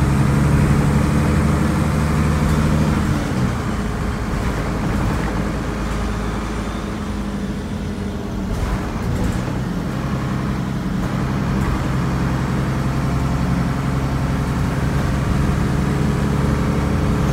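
Inside a 2004 Nova Bus city bus under way: the diesel engine's steady low drone over road rumble. The drone fades out about three seconds in, leaving only the rumble for several seconds, and comes back to hold steady from about ten seconds on.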